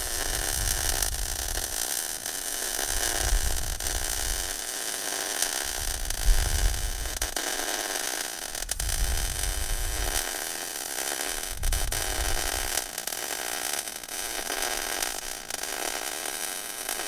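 Electric welding arc on thick steel: a continuous crackling hiss as the steering-box mount bracket is welded to the chassis, run hot for deep penetration.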